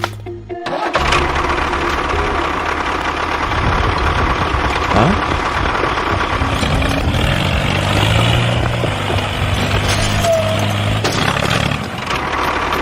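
A small motor starts abruptly about a second in and keeps running steadily with a rapid, even pulsing, most likely the drive motor of a DIY mini tractor.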